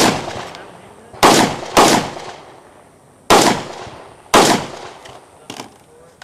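Rifle shots fired at an irregular pace in a timed action-rifle stage: four loud shots about a second in, at two seconds, at three and a half seconds and at four and a half seconds, each followed by a ringing echo, then a fainter shot near the end.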